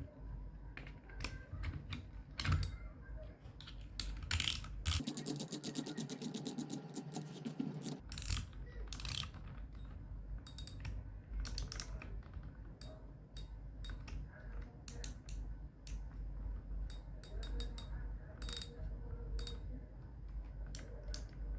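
Shimano Catana spinning reel clicking and ratcheting as it is worked by hand, with a fast, even run of clicks between about five and eight seconds in and scattered single clicks around it.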